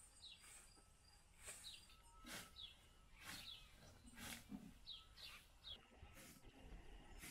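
Faint swishes of a hand scythe cutting tall grass, about one stroke a second, with small birds giving short falling chirps throughout.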